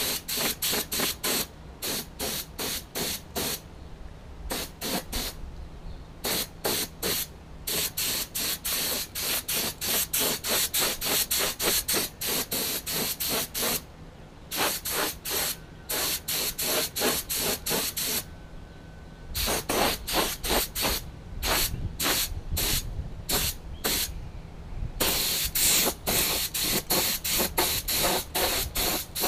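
Paint spray gun hissing in rapid short trigger bursts, several a second, in runs broken by a few brief pauses, as a coat of gloss black acrylic enamel goes onto a part. A faint steady low hum runs underneath.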